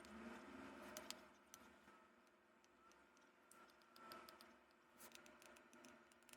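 Near silence: faint scattered clicks and ticks over a low steady hum.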